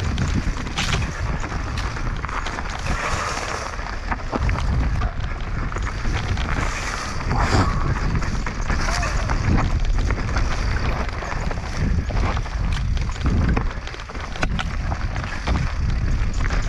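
Mountain bike descending a dirt trail at speed: wind rushing over the camera microphone, with tyres on dirt and the bike knocking and rattling over bumps.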